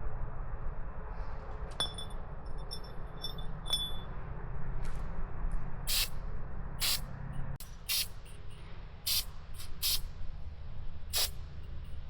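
A run of short hissing sprays of liquid, about a dozen unevenly spaced squirts in the second half, preceded by a few faint metallic clinks.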